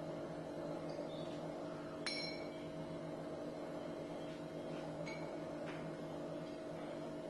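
Steady low hum with a faint metallic ping about two seconds in and a few lighter ticks, metal clinking against metal.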